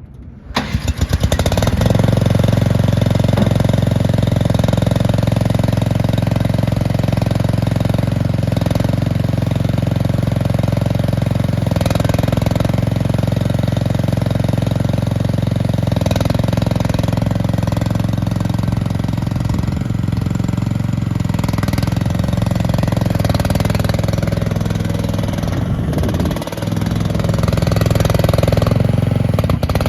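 Gas engine of an AGT MX-MRW14 wheeled mini skid steer loader cranking and catching about a second in, then running steadily while the machine is driven around. The level dips briefly near the end.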